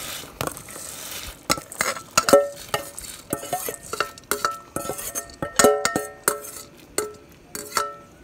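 Metal spoon scraping and knocking against a stainless steel bowl as washed rice is spooned out into the pot, with repeated irregular clinks, some leaving the bowl ringing briefly.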